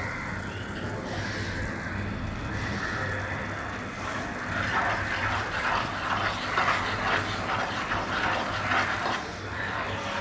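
Sugar syrup boiling hard in a nonstick frying pan, a dense bubbling crackle: the sugar has fully melted and the syrup is cooking toward caramel. From about four seconds in, a wooden spatula stirs through it and the crackling gets louder for several seconds. A low steady hum runs underneath.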